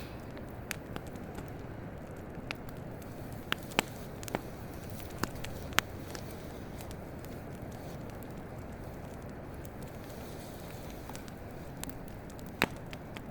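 Campfire crackling: irregular sharp pops, most of them in the first six seconds and one more near the end, over a steady low rushing background.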